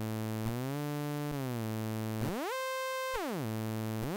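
Image-Line Sawer software synth holding one sustained note whose pitch slides between notes with glide (portamento) in static mode. First it slides a small step up and back down, then about two seconds in it slides up roughly two octaves, holds, and slides back, with another slide up starting near the end. Each slide takes about the same short time however far apart the notes are, which is the sign of the static glide setting.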